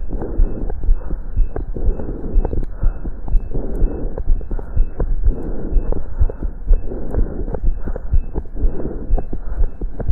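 Heartbeat heard through a stethoscope during exercise: a fast, regular series of low thumps over a rushing noise that swells and fades every second or two.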